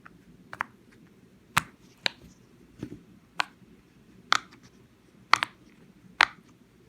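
Small rhino-shaped silicone fidget popper being pressed, its bubbles giving sharp little pops about nine times at uneven intervals, roughly one a second.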